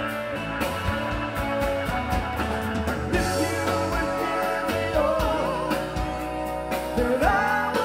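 Live rock band playing in a small room: electric guitars, drum kit and keyboard, with a bending melody line over the band.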